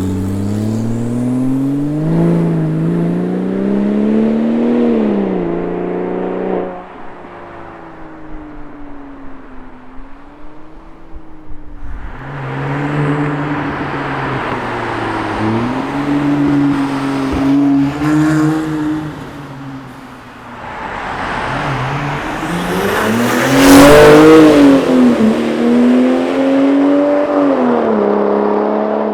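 Porsche 997 911 Turbo's twin-turbo flat-six heard through a custom exhaust with handmade mufflers, built to be louder without booming or rasping, while the car is driven. The engine pulls up through the revs several times, with sudden drops between pulls as it shifts or comes off the throttle. The loudest, highest pull comes about three-quarters of the way through.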